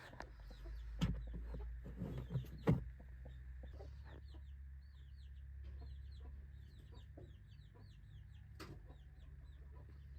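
Birds peeping in short, high chirps that repeat rapidly and steadily, with a few knocks in the first three seconds and one more near the end, over a low steady rumble.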